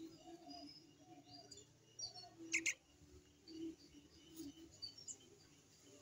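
Small birds chirping faintly, with two sharp high chirps in quick succession about halfway through.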